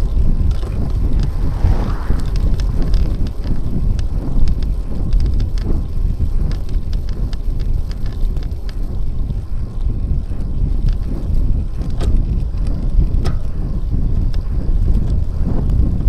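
Wind blowing over the microphone of a bicycle-mounted camera while riding along a road, a steady low rumble with scattered small clicks.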